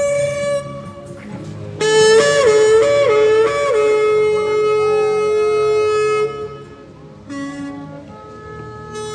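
Shofar (ram's horn) being blown in long held notes. About two seconds in it jumps up in pitch three times in quick succession before settling into a long note; a short lower note sounds near the end.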